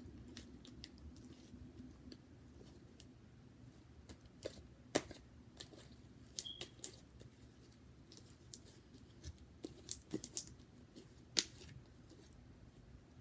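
Runny slime being worked by hand with activator: scattered small sticky clicks and pops, the sharpest about 5 seconds in and near the end.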